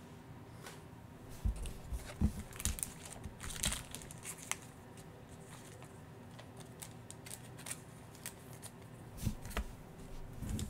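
Trading cards and foil-wrapped card packs handled on a tabletop: scattered light taps and a few soft knocks, with a pack wrapper crinkling a few seconds in and again near the end.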